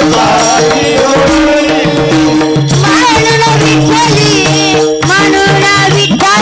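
Devotional kirtan music: steady held drone tones under a wavering, melismatic melody line, with hand-drum and small-cymbal percussion keeping a regular beat.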